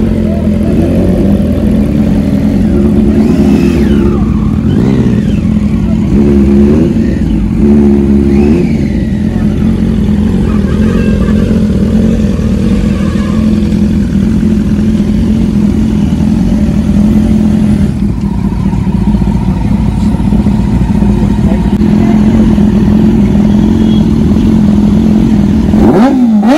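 Several superbike engines idle together, the nearest a BMW S1000RR's inline-four, with a few short throttle blips in the first nine seconds and another quick rev near the end.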